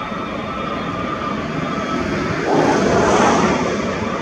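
Boeing B-52H Stratofortress's eight Pratt & Whitney TF33 turbofan engines running at low power as the bomber rolls out on the runway after landing with its drag chute out. A steady whine sits over a broad rumble, which swells for about a second a little past halfway.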